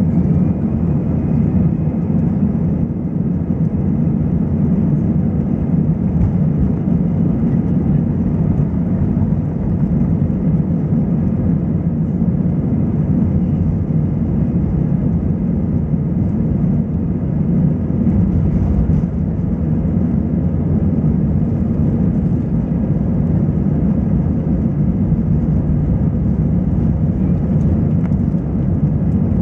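Airbus A320 engine and airflow noise heard from inside the passenger cabin, a loud, steady low roar.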